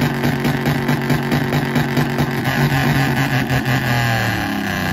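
Pickup truck engine held at high revs through a loud exhaust, then the revs fall back near the end.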